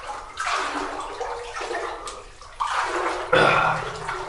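Wading through standing water in a flooded mine tunnel: legs sloshing and splashing with each stride, about four strides, the loudest splash a little after three seconds in.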